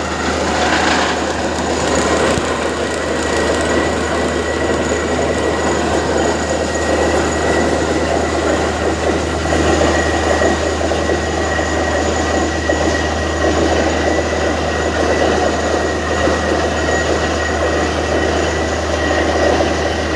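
Borewell drilling rig running steadily: a loud, continuous low engine drone with dense rattling over it and a thin, steady high whine.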